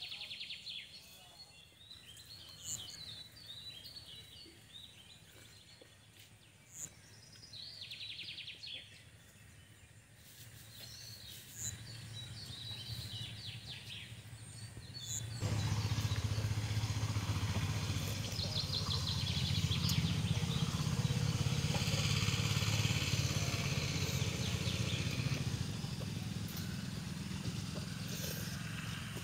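Small birds chirping over a quiet outdoor background. About halfway through, a much louder steady low rumble with hiss sets in abruptly and carries on.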